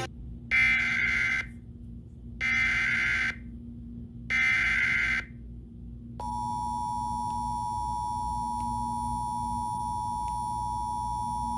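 Emergency Alert System tones: three bursts of data tones, each about a second long and a second apart, which are the digital alert header. About six seconds in, the steady two-tone attention signal starts and holds.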